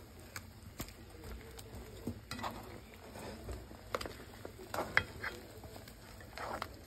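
Pork and red onion sizzling in soy-sauce liquid in a nonstick frying pan, with scattered clicks and short scrapes of a spatula stirring the meat against the pan, the loudest about 4 and 5 seconds in.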